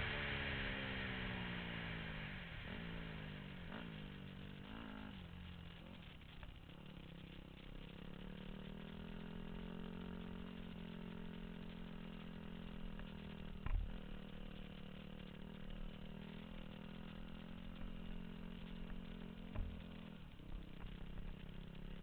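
Motorcycle engine heard from a helmet camera, its revs falling as the bike slows, with a few brief rises in pitch. It then settles into a steady low running note, with a single knock a little past the middle.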